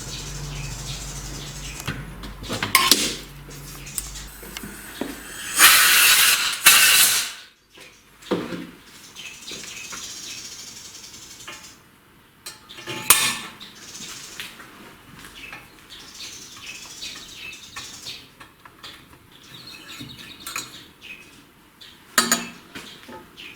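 Steel tools clinking and scraping on a cylinder head during hand valve-seat cutting. A low hum stops about four seconds in. The loudest part is a noisy scrape of about a second and a half, and separate metal clanks come a few times.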